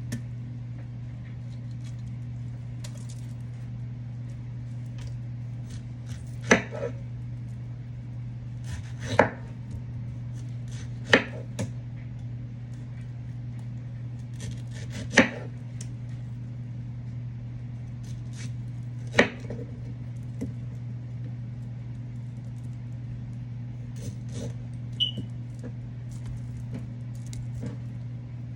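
A kitchen knife cutting pineapple, knocking down sharply onto a cutting board every few seconds, about five loud strokes and a few lighter ones, over a steady low hum.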